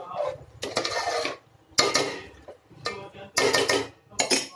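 A metal ladle stirring and scraping chicken and masala in a metal cooking pot, in four short bouts of scraping and clinking with brief pauses between.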